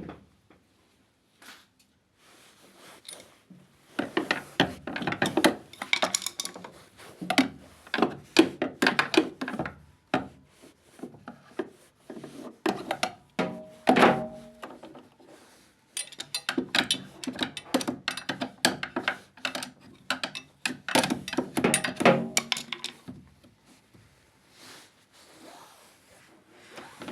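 Irregular knocks, clatter and rubbing from hands and tools at work, in bursts with short pauses.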